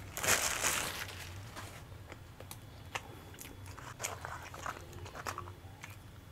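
Paper sandwich wrapper crumpled in the hands for about a second and a half, then close-up chewing and biting with small crisp clicks.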